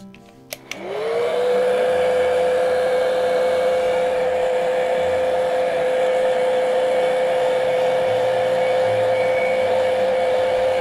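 Handheld heat dryer switched on about a second in, its motor spinning up with a rising whine to a steady hum and rush of air, drying wet acrylic paint; it is switched off at the very end and its pitch drops away.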